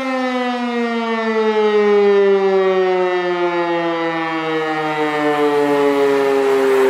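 E57 electro-mechanical rotary siren winding down, its tone falling slowly and steadily in pitch, while sounding the "Feueralarm" signal that calls out the volunteer fire brigade.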